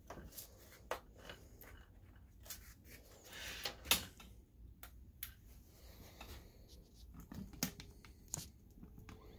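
Scattered small clicks and knocks of hands handling an opened projector and plugging in its power cord, the loudest knock about four seconds in.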